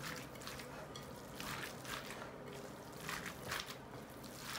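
Faint, wet squelching of raw chicken pieces and chopped vegetables, coated in oil and tomato paste, being kneaded by hand in a glass bowl, in irregular strokes.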